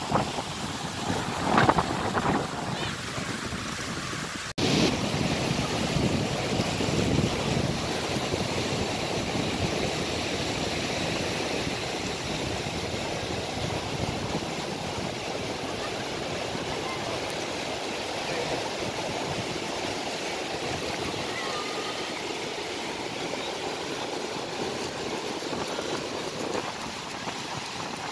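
Wind gusting on the microphone and through palm fronds, then, after a sudden cut about five seconds in, a steady rush of wind and surf breaking onto a sandy beach.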